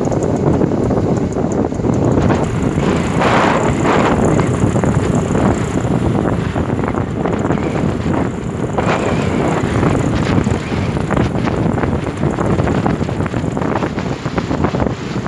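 Wind buffeting the microphone at riding speed, a dense, steady rumble, with motorcycle engine and road noise running underneath.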